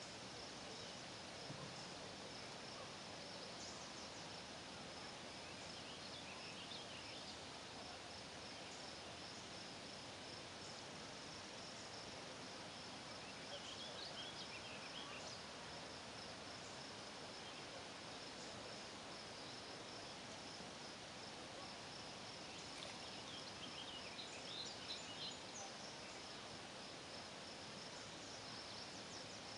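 Dusk lakeside ambience: a steady high-pitched insect trill, with short clusters of bird chirps a few times, several seconds in, mid-way and near the end, over a faint hiss.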